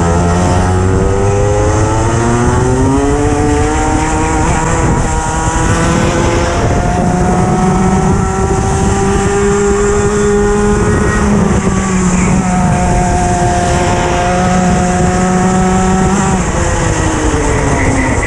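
Racing kart engine heard from on board under full throttle, its note climbing steadily, dipping briefly about six seconds in and climbing again, then falling near the end as the kart slows into a corner.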